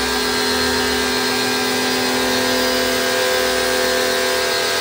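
Electric high-pressure washer running steadily under load, its motor and pump giving a constant hum with several steady tones over the hiss of the water jet.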